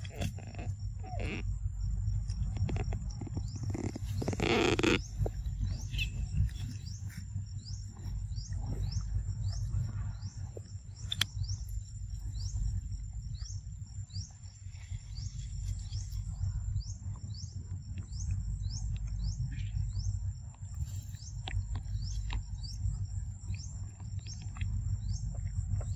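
Outdoor tropical ambience: a steady high insect whine with short high chirps repeating a little over once a second, over a constant low rumble on the microphone. A brief loud noisy burst about four seconds in.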